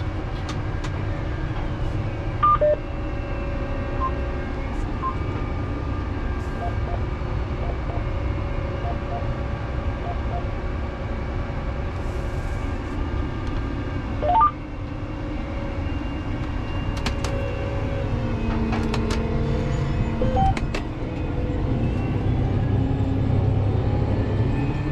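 Tractor engine running steadily under load, heard from inside the cab, while pulling a row-crop cultivator through soybeans. A few short electronic beeps sound over it, with a quick rising run of beeps about halfway through.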